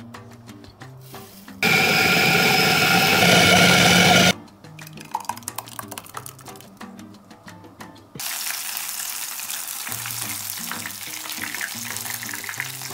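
A small electric food chopper runs for about three seconds with a steady whir as it blends coriander, tomato, red chili and garlic. After a short gap, duck breast sizzles and crackles in hot oil in a frying pan through the last few seconds.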